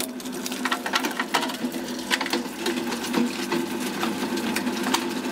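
Scrap shredder running with a steady motor hum, pieces of material clattering and ticking irregularly inside the cutting chamber. The screen underneath is blocked, so little is getting through.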